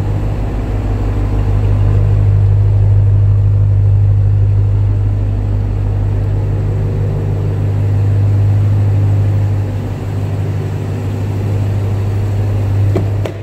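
The supercharged 6.2-litre Hemi V8 of a 2021 Ram 1500 TRX idling steadily with a low, even rumble. A couple of short clicks come near the end.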